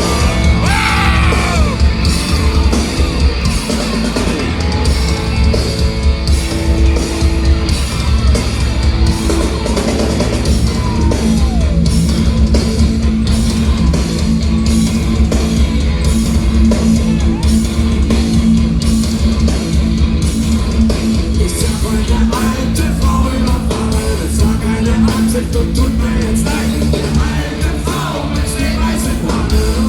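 Punk rock band playing live at full volume: electric guitars, bass and drums, with shouted vocals.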